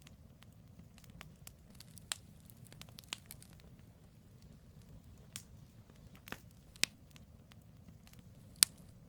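Wood campfire burning with a low steady hiss, split logs crackling and popping sharply at irregular moments, the loudest pop near the end.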